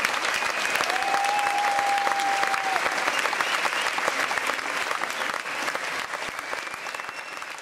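Audience applauding, a dense clatter of many hands, with a few long steady high tones over it. It thins out and grows quieter near the end.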